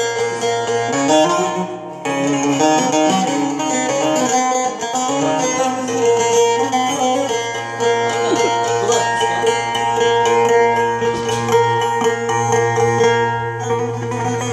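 Bağlama (Turkish long-necked saz) played through its built-in transpose, set so the tonic (karar) is G: a run of plucked melody notes over steadily ringing drone strings, with a brief break about two seconds in.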